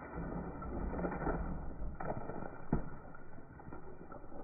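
Ice sliding off a steel shed roof and dropping to the ground in chunks: a steady rushing clatter, with two sharper hits about two seconds in and just under three seconds in.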